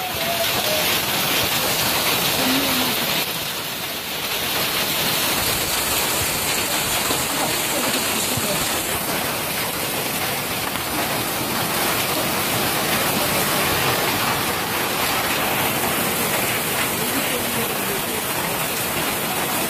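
Hailstorm: hail and heavy rain falling steadily on a street and the surfaces around it, an unbroken dense pelting.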